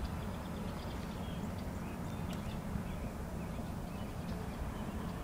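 Open-air ambience over water: a steady low rumble, with faint, scattered high bird chirps above it.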